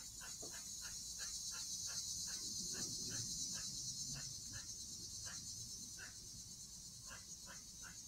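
A squirrel's repeated short alarm barks, quick at first and then slower and more spaced out, over a steady high drone of insects.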